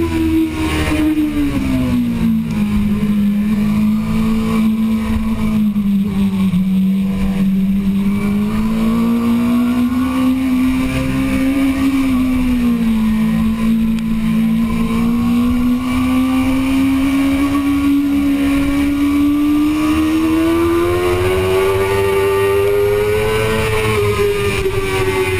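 2005 Suzuki GSX-R600 inline-four racing engine under way on track, heard from on board. Its note drops in the first couple of seconds, holds lower with small rises and dips through the turns, then climbs steadily through the second half as the bike accelerates down the straight.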